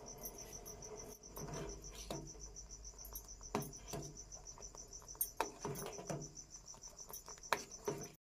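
A cricket chirping steadily in a fast, even pulse, with a scattering of short knocks and clinks, about eight of them, starting about a second and a half in.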